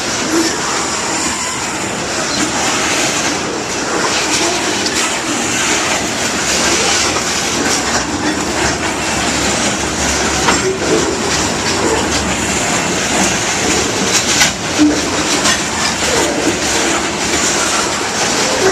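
Iowa Interstate Railroad freight cars rolling past on steel rails: a steady rumble with the clickety-clack of wheels over rail joints and occasional brief wheel squeal.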